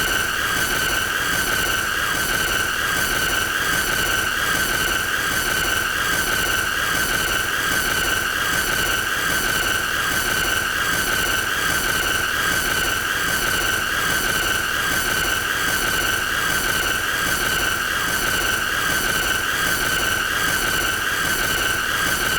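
A shrill, steady high-pitched tone with a fast regular flutter, held without change, played as an annoying sound.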